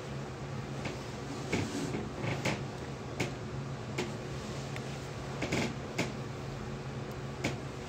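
Handling noise: about ten short, irregular clicks and rustles as the phone and clothing are moved close to the microphone, over a steady low hum.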